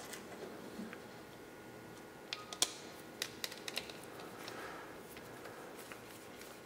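Faint, irregular small clicks and taps of metal machine screws and a screwdriver against a metal servo hub and plastic plate as 6-32 screws are fitted through the hub and started. The clicks are sparse for the first couple of seconds and come thicker after that.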